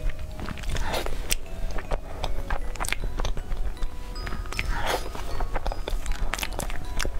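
Close-miked eating of a chocolate dessert: crisp clicks and crackly crunches as chocolate is bitten and chewed, the loudest crunches about a second in and again around five seconds in.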